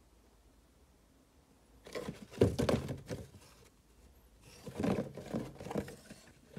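Cardboard box being handled: two bouts of scraping, rustling and knocking as it is opened and turned over, one about two seconds in and one near the end.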